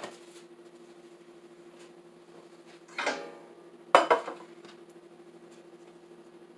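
Metal muffin pans and a utensil clanking as batter is about to be spooned in: a small click, a ringing metallic clink about three seconds in, then two sharp knocks a moment later, over a faint steady hum.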